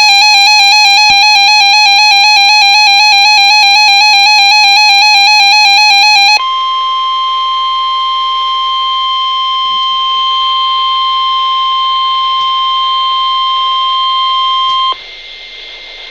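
Emergency Alert System alert tones: a harsh, warbling two-tone attention signal for about six seconds, then a sudden switch to a single steady tone, the NOAA Weather Radio warning alarm tone, which stops about a second before the end, leaving faint hiss. The tones announce a severe thunderstorm warning.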